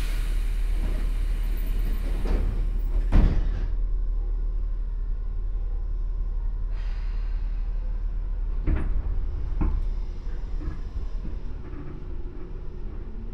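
Sliding passenger doors of a Tobu 10000-series train closing, with a hiss and then a loud thump about three seconds in and two more knocks near nine seconds in, over the carriage's steady low hum. Just before the end a rising tone begins as the field-chopper traction motors start the train.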